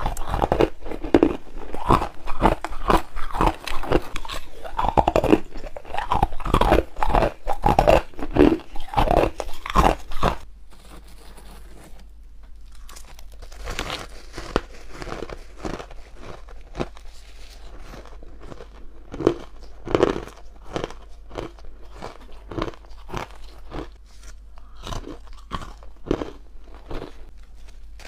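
Crushed ice being bitten and chewed, a rapid run of crisp crunches. About ten seconds in, the crunching becomes softer and more spaced out as chunks of frosty, powdery refrozen ice are bitten off.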